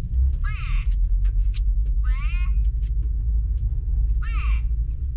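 A small dog whining three times, each a short high cry about half a second long, the cries about two seconds apart. Under the cries is the steady low rumble of the electric tricycle camper riding along.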